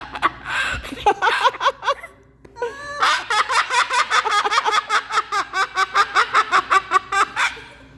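Moluccan cockatoo laughing: a few short calls, a brief pause, then a long run of rapid repeated laughing calls, about four to five a second.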